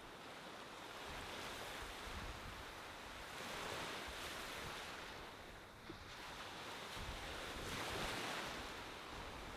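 Gentle ocean surf washing onto a sandy beach, swelling and fading every few seconds, with a low wind rumble on the microphone at times.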